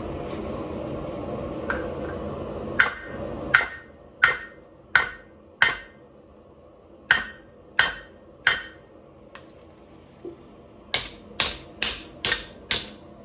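A forge runs with a steady rushing noise for the first three seconds. Then a hammer strikes hot 5160 steel bar on an anvil, bending it: about thirteen blows in three runs, with a short metallic ring after many of them.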